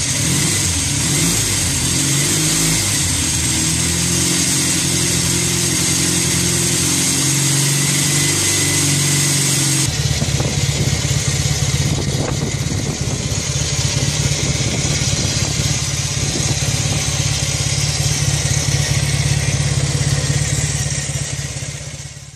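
Jawa 500 OHC motorcycle's 488 cc parallel-twin overhead-cam engine running. Its pitch rises and falls in light revs at first, then, after a cut about ten seconds in, it runs steadily with fast, even exhaust pulses. The sound fades away near the end.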